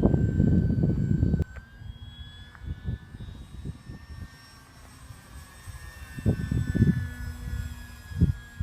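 Electric motor and propeller of a ParkZone Focke-Wulf 190A-8 RC plane in flight: a thin, high whine that slowly rises and falls in pitch as it passes. Heavy wind buffeting on the microphone covers it at first and stops suddenly about a second and a half in, with short gusts again later.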